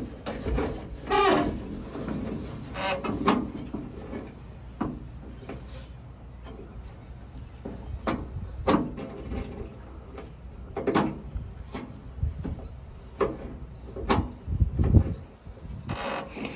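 Irregular clicks and knocks from hand work on a pickup's tailgate lock mechanism, parts and tools being handled, over a steady low rumble.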